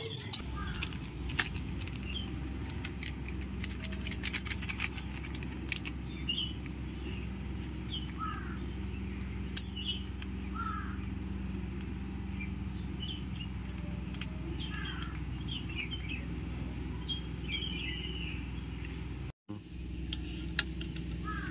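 Outdoor ambience: a steady low hum with small birds chirping now and then, and a few faint clicks in the first few seconds. The sound cuts out for a moment near the end.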